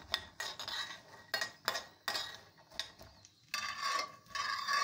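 A spoon stirring oiled chickpeas in a heavy-bottomed frying pan, with a run of clicks and scrapes against the pan. About three and a half seconds in this gives way to a steady rasping scrape.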